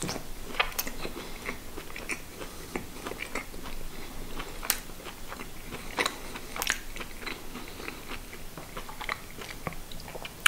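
Close-up chewing of mini kabanosy, thin dry-smoked Polish pork sausages, with irregular small crunches and mouth clicks.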